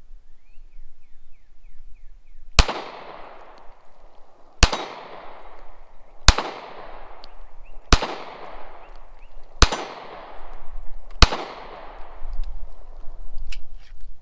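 A Glock 43 9mm subcompact pistol fired six times at a slow, even pace, about one and a half seconds apart, each shot ringing out with a short echo. Near the end a couple of light clicks follow as the slide stays locked back on the empty gun and the magazine drops out.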